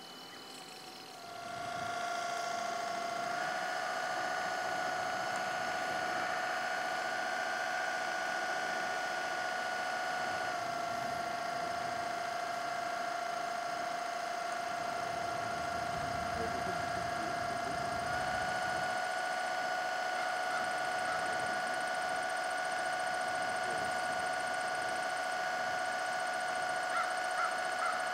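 Electric drive motor of a 1/16 scale RC tugboat whining steadily under way. Its pitch steps up slightly about three seconds in, dips briefly around ten seconds, and steps up again near eighteen seconds as the throttle changes.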